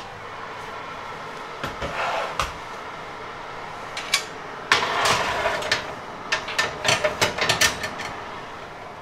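Fan oven door pulled open, then a metal baking tray slid onto the wire shelf with a run of clanks and scrapes as it is pushed in and settled. A steady whir from the open oven's fan underlies it.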